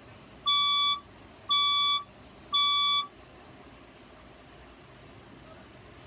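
Fire alarm speaker strobe sounding the temporal-three evacuation signal: three steady half-second beeps, half a second apart, with a pause after the third. This is the fire alarm signal that leads into the voice evacuation message.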